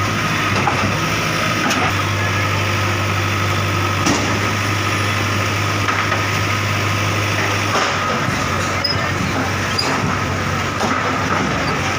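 Bulldozer's engine running steadily at idle, with a low hum that eases about eight seconds in.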